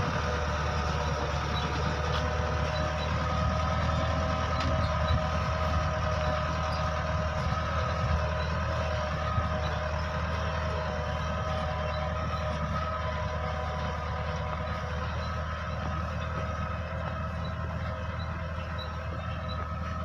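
Tractor engine running steadily as it tows a Grimme potato harvester, a low drone with a steady multi-tone whine over it, easing off slightly toward the end.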